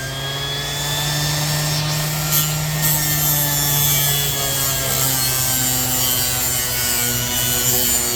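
Orbital sander with a 220-grit Diablo disc running steadily against a rusty steel scraper blade: a constant motor hum under a rasping sanding noise.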